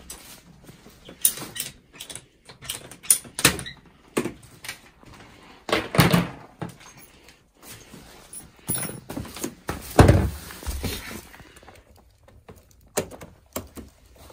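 Irregular clicks, knocks and rustling of plastic heating pipe and fittings being handled by hand while a loop is connected to an underfloor heating manifold, with a louder thump about ten seconds in.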